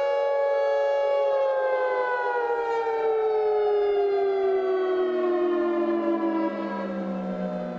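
Outdoor warning siren winding down. Its chord of tones holds steady for about a second, then falls slowly and evenly in pitch, with the level dropping a step near the end.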